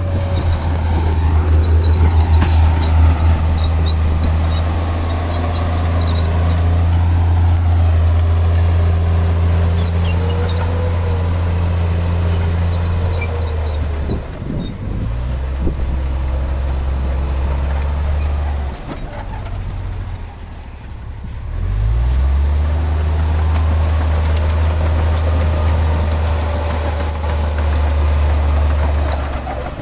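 Heavy diesel engine of a construction machine running with a deep, steady drone. It eases off twice, briefly about halfway through and again for a few seconds soon after, then revs back up each time.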